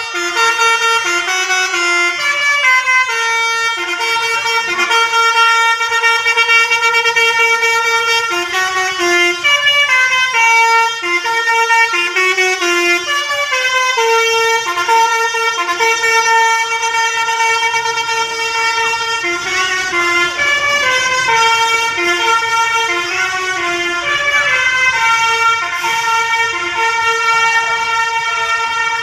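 Bus 'telolet' musical air horn playing a tune: several horn tones sound together and step through short steady notes, one after another without a break.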